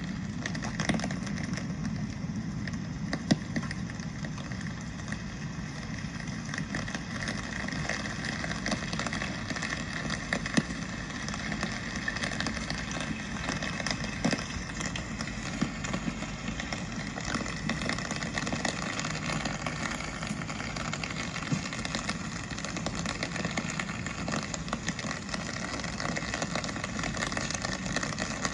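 Rain falling, with many scattered sharp drip ticks over a steady low rumble of street traffic.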